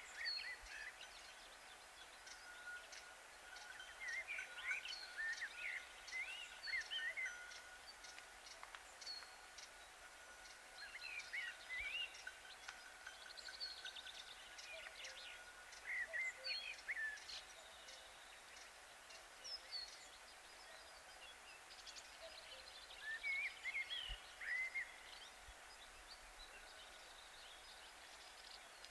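Small birds singing in short clusters of quick, sweeping chirps every few seconds, over a faint steady high tone.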